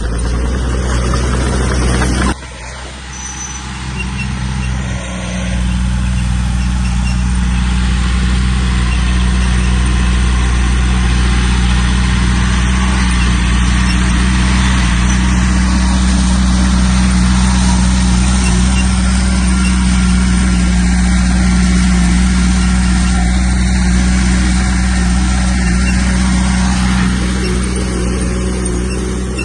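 Heavy diesel earthmoving machinery running steadily. The sound drops suddenly about two seconds in and builds back to full strength a few seconds later.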